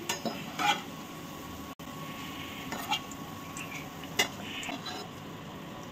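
Hot ghee sizzling gently in a steel kadai while fried boondi are scooped out, with several light clinks of metal tongs and a mesh strainer against the pan.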